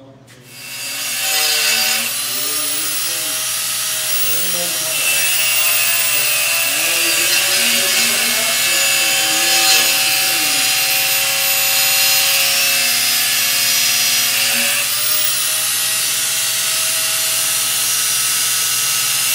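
Handheld angle grinder spinning up about half a second in, then grinding metal held in a vise. It makes a harsh, steady grinding hiss over a motor whine.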